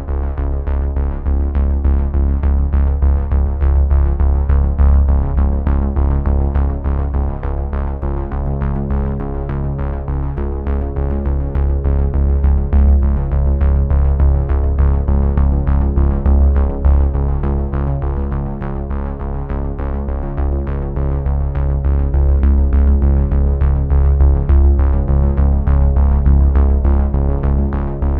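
Background synthesizer music with a steady beat and sustained chords.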